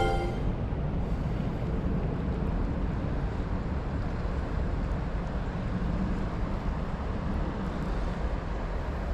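Steady rushing noise of the river current, mixed with wind buffeting the microphone. The last notes of a short musical sound effect cut off in the first moment.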